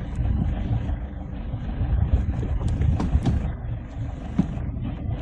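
Vehicle engines running in slow traffic: a steady low rumble with small knocks and clicks over it.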